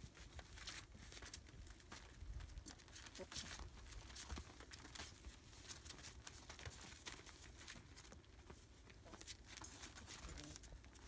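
Faint rustling and crinkling of newspaper under the paws of month-old rough collie puppies moving about the pen floor, with many short, irregular clicks.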